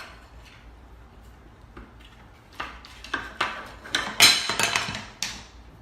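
A run of light clattering knocks and clicks, like hard objects being knocked about, thickening about two and a half seconds in and loudest a little after four seconds.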